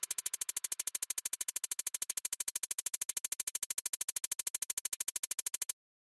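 Music: a rapid, even electronic pulse at about ten beats a second, cutting off suddenly near the end.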